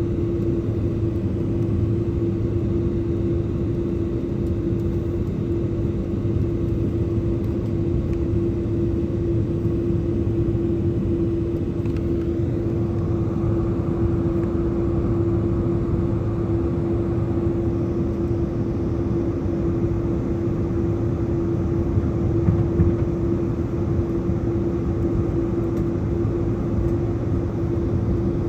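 Jet airliner cabin noise: a steady low rumble of engines and airflow with a constant droning hum. A higher hiss joins about thirteen seconds in.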